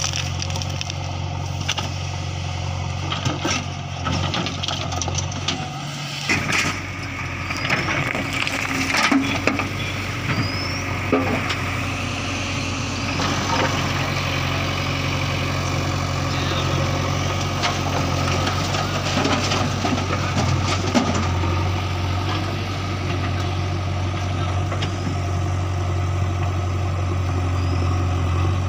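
Diesel engine of a JCB 3DX backhoe loader running steadily under load while loading soil into a tractor trolley, with scattered knocks and crackles of soil and clods landing, mostly in the first half.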